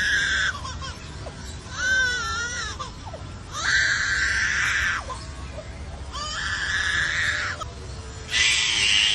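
Lyrebird mimicking a crying baby: a run of about five separate cries, each roughly a second long, about a second apart, the second with a wavering pitch.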